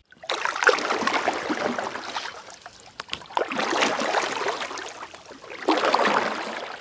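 Water swishing and splashing in three surges, each about two seconds long.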